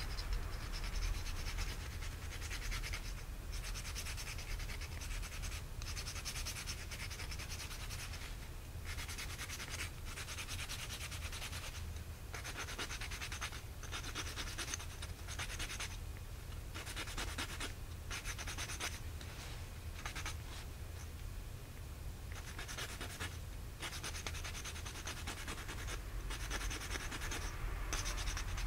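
Sapphire nail file rasping back and forth across a dachshund's claws, in runs of a second or two with brief pauses between them.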